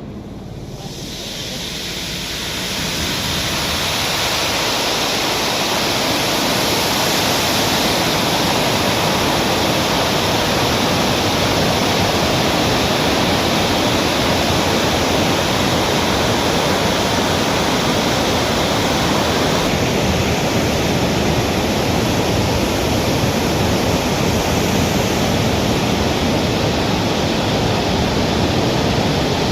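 Water released through a dam's open gates, rushing and churning in a loud, steady wash of noise that builds over the first few seconds and then holds.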